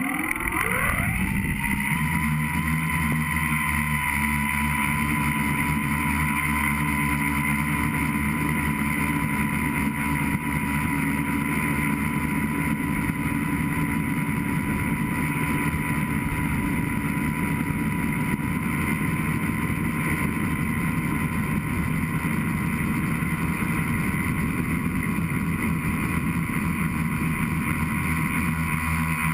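FPV tricopter's electric motors and propellers spinning up with a rising whine over about the first second, then running with a steady whine in flight, heard from the camera mounted on the craft.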